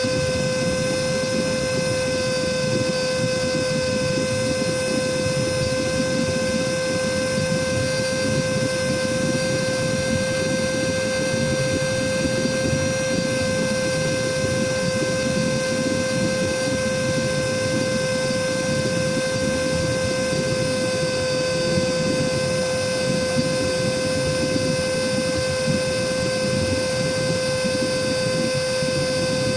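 Cordless vacuum cleaner's motor running free on battery with no load: a steady whine over a rush of air, unchanging throughout.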